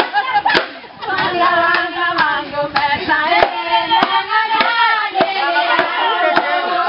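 A group of voices singing a dance song together, kept in time by sharp hand claps a little under two a second.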